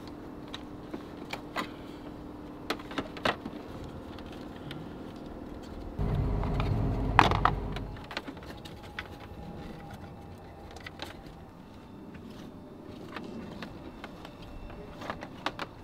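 Scattered light clicks and rattles of a wire and plastic engine-bay parts being handled while a power cable is routed and fastened under a car's hood. A low rumble swells for about two seconds in the middle and ends in a sharp click.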